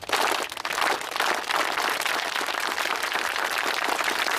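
A large group of kids clapping together in a cheer's slow clap, the claps starting more spaced and soon thickening into dense, steady clapping.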